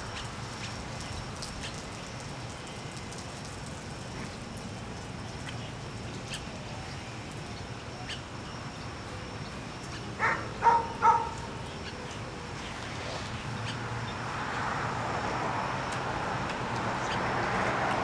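Steady outdoor street background. About ten seconds in, three short animal calls in quick succession; in the last few seconds a broad rush of traffic noise swells.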